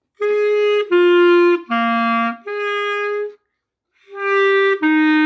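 B-flat clarinet playing a slow practice run of separate held notes: written B-flat, G, C, B-flat, then after a short pause A and F begin about four seconds in.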